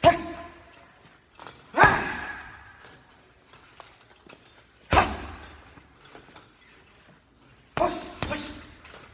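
Boxing gloves punching a hanging heavy bag: single heavy thuds a couple of seconds apart, the loudest about two seconds in, then a quick three-punch combination near the end, each hit echoing in a large hall.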